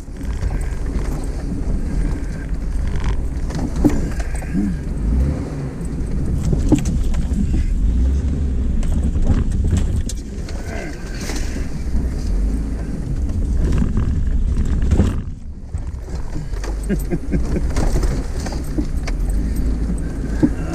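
Off-road vehicle driving slowly over a rough dirt trail: a steady low engine and drivetrain rumble with scattered knocks and rattles as it bumps over the ground, dropping briefly about fifteen seconds in.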